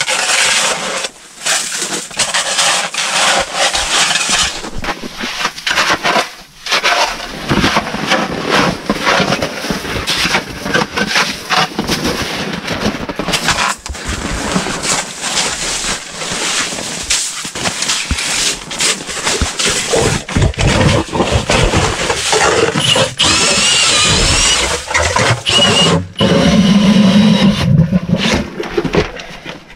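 Shovel repeatedly chopping into and scraping hard-packed snow, a long run of crunching strikes and scrapes. Near the end a steadier low hum joins in.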